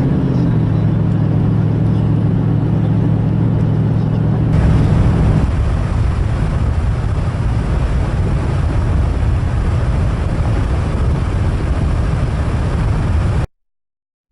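Truck engine running while driving, a steady hum that drops in pitch about half a second in and gives way to a steadier road rumble a few seconds later. It cuts off abruptly near the end.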